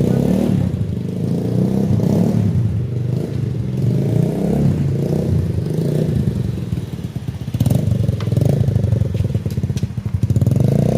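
Rusi Korak motorcycle engine and exhaust running, its pitch rising and falling with the throttle, easing off briefly about seven seconds in and then picking up again.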